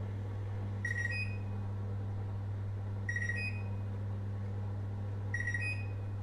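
Microwave oven running with a steady low hum, and three short electronic beeps about two seconds apart.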